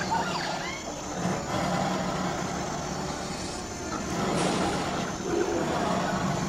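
A vehicle engine running steadily with a low hum, and a brief hiss about four and a half seconds in.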